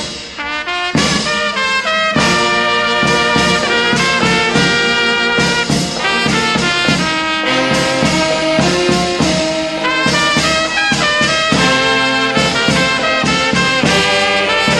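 Brass band playing a tune with cornets on the melody, many brass notes changing in quick succession. After a brief lull in the first second, the full band plays on.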